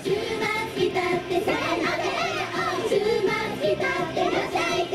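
Idol group of young women singing a pop song live into handheld microphones over backing music with a steady beat.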